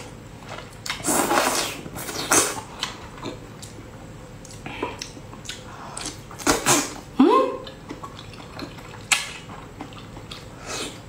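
Wet sucking, slurping and smacking mouth sounds of a person eating cooked octopus tentacles, in short bursts a second or few apart.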